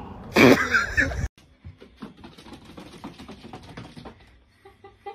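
A brief loud human voice that cuts off about a second in, then a run of light, irregular taps and clicks for about three seconds.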